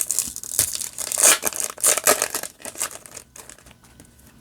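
Foil booster-pack wrapper crinkling and rustling as it is handled, busy for the first couple of seconds and then dying away.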